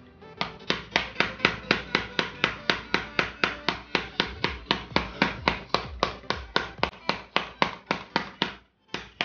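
Small mallet tapping rapidly on the plastic case of a laptop power adapter, about four knocks a second, with a brief pause near the end. The taps are meant to crack the glue holding the case halves together.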